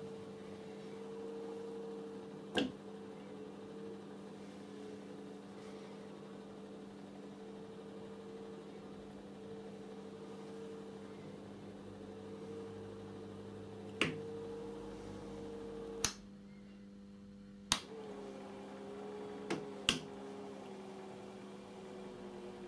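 Golf-trolley electric motor driving a Myford lathe's lead screw, running with a steady hum and a wavering whine that dips slightly in pitch about two-thirds of the way through. A few sharp clicks stand out above it, about six in all, mostly in the second half.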